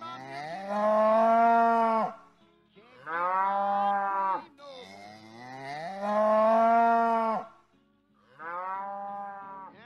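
A cow mooing four times: long, drawn-out calls that rise in pitch as each begins and then hold steady, with short pauses between them. The last moo is shorter and softer.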